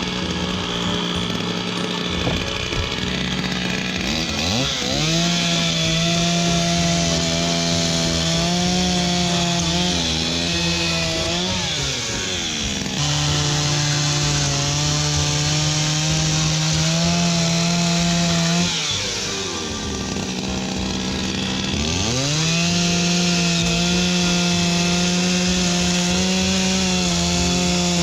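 Stihl two-stroke chainsaw, rebuilt with a new piston and cylinder kit, running at high revs. Its pitch sinks and climbs back again about three times, as the engine is held at speed, drops and picks up.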